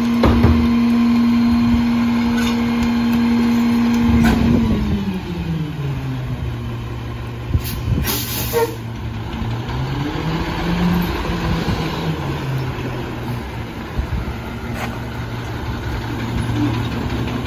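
Rear-loader garbage truck's diesel engine held at a raised, steady speed to drive the packer hydraulics, dropping back to idle about four seconds in, then revving up briefly and settling again as the packer blade cycles. A short air hiss a little past halfway and a few clunks from the packer mechanism.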